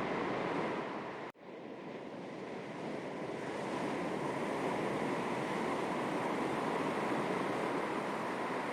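Calm sea waves lapping on the shore, a steady wash of water. About a second in the sound drops out abruptly for an instant and fades back in.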